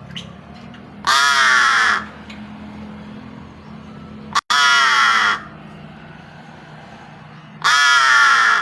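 Crow cawing three times, each a harsh call about a second long, spaced roughly three seconds apart.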